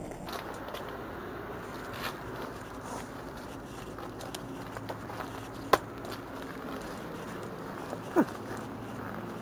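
Veloped rollator's wheels rolling over a snowy pavement, a steady rumbling hiss of tyres on snow, with two sharp knocks: one a little after halfway and one near the end.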